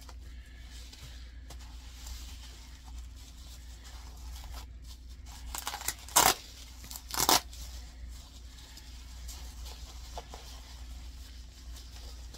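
Tape and bubble-wrap packaging being cut and torn open, mostly soft rustling with two sharp rips about a second apart a little past the middle.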